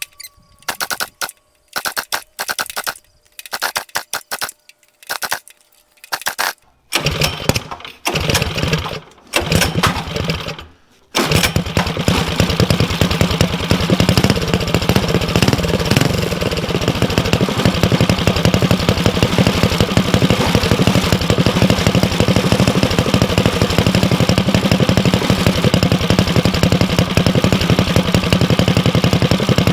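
Built Predator 212 single-cylinder four-stroke engine being started through its newly made exhaust pipe: it fires in several short, broken bursts for about ten seconds, then catches about eleven seconds in and runs steadily and loudly.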